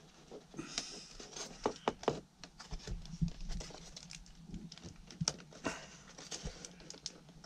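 Irregular small clicks, taps and scrapes as a plastic vent sleeve is pushed and worked by hand into a round hole in timber ceiling cladding.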